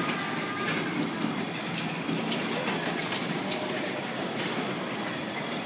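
Kiddie car ride turning: a steady mechanical rumble from the rotating platform, with a few sharp clicks or knocks in the middle.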